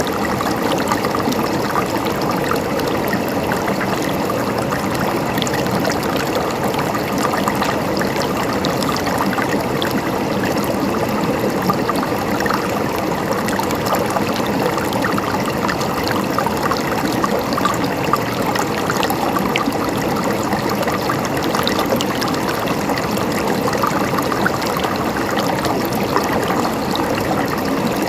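River water flowing steadily over rocks, a continuous rushing with fine splashing and trickling detail.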